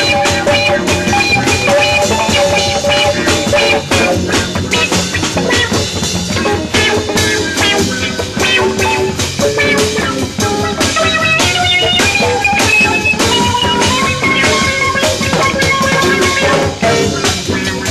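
Live underground jazz ensemble playing, recorded in 1974: a busy drum kit and guitars under sustained melodic lines, one of which steps upward in pitch about two-thirds of the way through.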